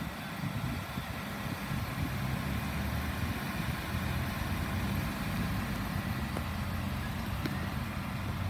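2018 Ford F-150 pickup's engine idling steadily, a low even sound.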